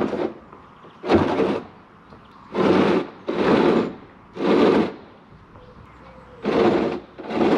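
A portable bank ramp being shoved and dragged across wet asphalt in short pushes. There are about six rough scrapes, each lasting around half a second, with short pauses between them.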